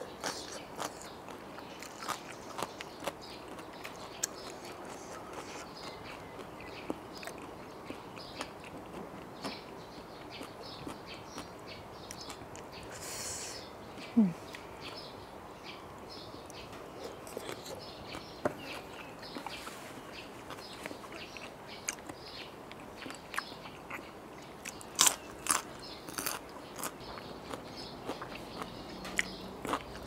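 Close-miked chewing and crunching of crisp raw vegetables such as carrot and cucumber, with many sharp crunch clicks and wet mouth sounds. A short hiss comes a little before the middle, then a brief low falling sound that is the loudest moment, and a run of loud crunches comes about five-sixths of the way through.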